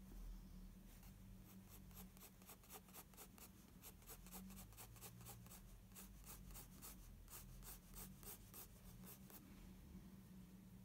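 Faint, quick strokes of a soft 6B graphite pencil hatching fur lines on sketchbook paper, about four short scratches a second, stopping near the end.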